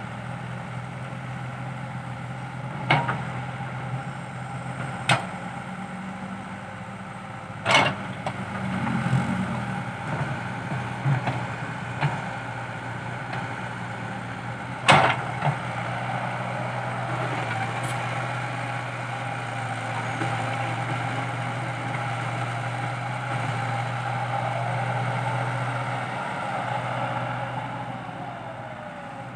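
Komatsu PC80 hydraulic excavator's diesel engine running steadily under load while the machine scrapes up topsoil, with a few sharp knocks from the bucket and arm. The loudest knock comes about halfway through.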